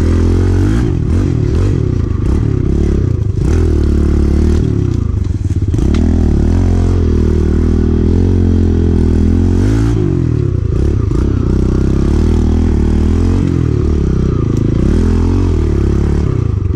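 Kawasaki KLX110 pit bike's small single-cylinder four-stroke engine under riding load, revving up and easing off again and again as the throttle is worked, with occasional clattering knocks.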